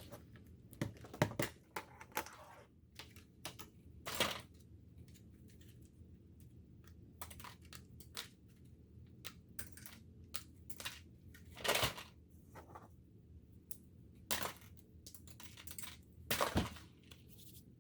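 LEGO pieces being handled and put into a plastic EV3 kit bin: scattered faint plastic clicks and short rattles, with a few louder clatters.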